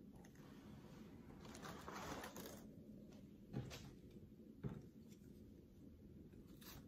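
Near silence with faint rustling about a second and a half in, then two light clicks, as seed-starting supplies are handled.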